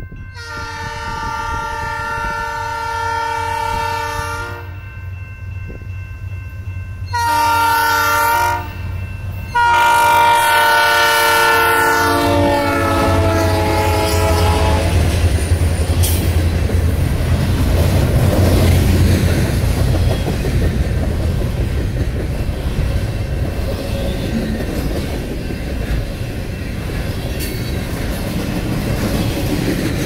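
The lead locomotive's multi-chime air horn, on a Bessemer & Lake Erie SD38-2, blows three times: a long blast, a short one, then a long one whose pitch drops as the locomotive passes. The diesel locomotives then rumble by, followed by double-stack container cars rolling past with steady wheel clatter.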